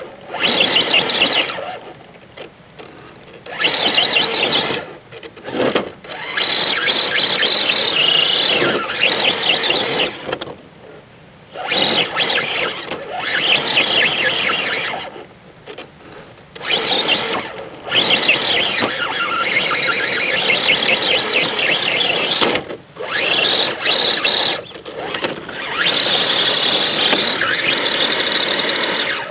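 Radio-controlled scale rock crawler's brushless electric motor and gear drivetrain whining in repeated throttle bursts, starting and stopping every second or few. The truck is under load, climbing a steep dirt and root bank.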